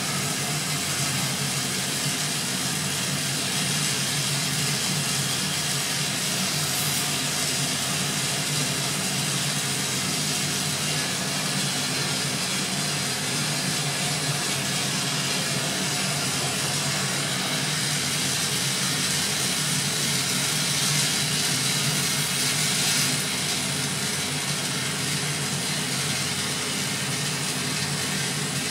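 Glass lathe burner flames giving a steady rushing hiss, with a steady low hum underneath, a little louder for a few seconds in the later part as the glass tubing is heated to fuse it.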